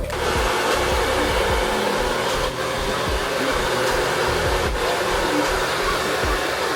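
Handheld hair dryer blowing steadily, switched on right at the start.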